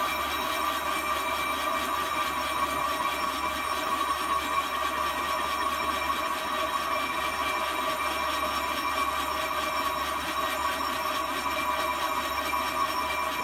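Metal lathe running steadily with a hum and whine while its cutting tool turns down the outside diameter of a heavy pipe flange cap.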